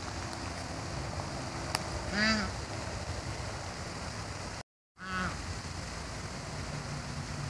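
A duck quacking, a short call about two seconds in and another just after a brief dropout near five seconds, over steady background noise.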